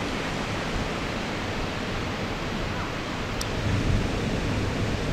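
Steady rushing noise of wind and sea surf on a sandy beach, with a low rumble running through it.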